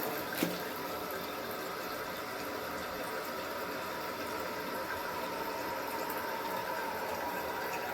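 Toto toilet tank refilling through its newly repaired fill valve after a flush: a steady rush of water with a faint steady whistle in it. It shuts off abruptly at the very end as the water reaches the fill line, showing the valve now closes properly.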